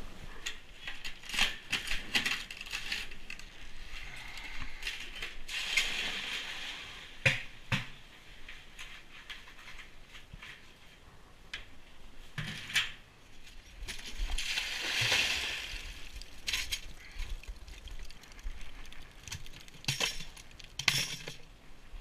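Buckets being handled in a horse stall: scattered clinks and knocks, with crunching and rustling in between and a longer rushing swell a little after the middle.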